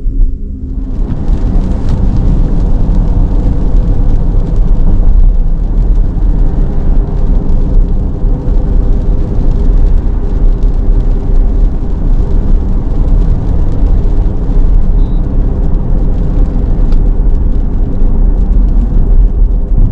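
Cadillac Lyriq electric SUV driving on a wet road: a steady low rumble of road and tyre noise under a constant hum of several steady tones. The noise swells over the first second or so, then holds.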